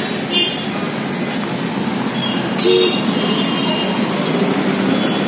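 Steady road traffic noise with a few short car horn toots, the loudest about three seconds in.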